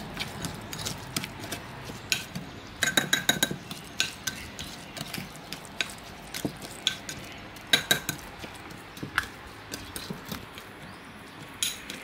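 Metal spoon stirring and scraping a wet chilli-and-garlic seasoning in a small bowl, with irregular clinks against the bowl's rim and sides. A quick run of louder clinks comes about three seconds in.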